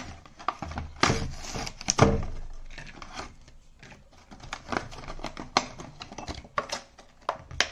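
Thick, stiff clear plastic blister packaging being flexed and pried apart by hand, giving irregular sharp cracks and crackles, the two loudest about one and two seconds in. The packaging resists and won't yet release the tool inside.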